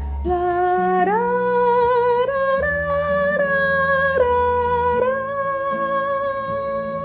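Slow, smooth passage of a children's song: a melody of long held notes, sliding up into its first long note about a second in, over a steady low bass line.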